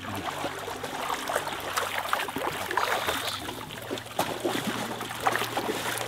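Muddy water splashing and sloshing in a steady, irregular stream of small splashes as a seine net is gathered and hauled by hand through shallow pond water.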